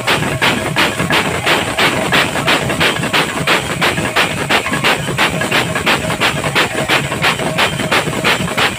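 Kirtan percussion: a two-headed barrel drum (dhol) and brass hand cymbals playing a fast, steady beat, with the cymbals striking about three times a second.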